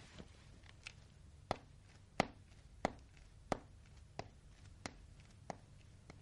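Footsteps of hard-soled shoes on a hard floor: about seven steps at an even walking pace, growing fainter as the walker moves away.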